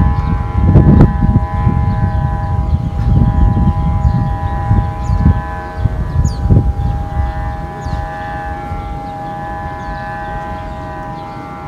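Sumba kite hummer droning overhead: a steady, siren-like hum of several held tones from the kite's vibrating hummer. Wind buffets the microphone with gusty rumble, easing after about eight seconds.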